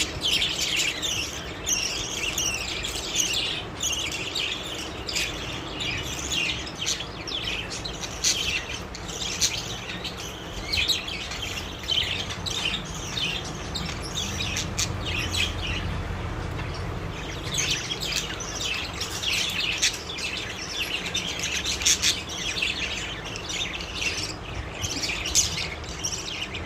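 A flock of pet budgerigars chattering continuously with rapid high chirps and warbles, thinning out for a few seconds midway before picking up again.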